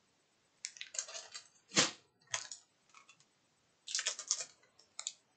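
Plastic packaging crinkling and rustling as small bagged merchandise is handled, in irregular bursts of crackle, the loudest about two seconds in.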